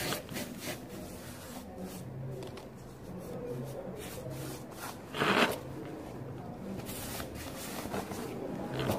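Handling noise: clothing rubbing and brushing against the phone's microphone, with scattered small clicks and one louder rustle about five seconds in.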